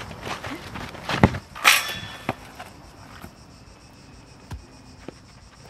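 Feet running and scuffing on a dry dirt pitch, with sharp kicks of a football and one louder noisy burst early on. About halfway the action drops away to a quieter backdrop of crickets chirping, broken by a few isolated knocks.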